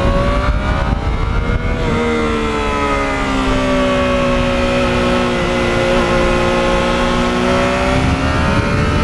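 Yamaha MT-09's inline three-cylinder engine running steadily under way, heard through its quiet exhaust. Its pitch dips and picks up again about two seconds in, then eases slowly down and rises a little near the end.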